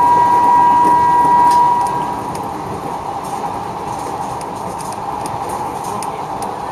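Odakyu express electric train running at speed, heard from inside the front car: a steady rush of wheels on rail. For the first two seconds a steady high tone rides over it, then fades away.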